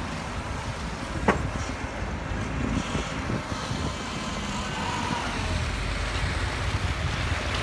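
A car rolling slowly along a slushy, snow-rutted street: a steady low rumble of tyres and engine with some wind on the microphone, and one sharp click about a second in.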